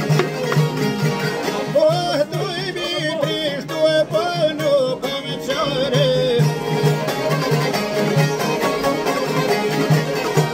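A man singing to his own çifteli, the two-stringed Albanian long-necked lute, which is plucked in a quick, steady rhythm throughout. The voice comes in about two seconds in and drops out at about six and a half seconds, leaving the çifteli playing alone.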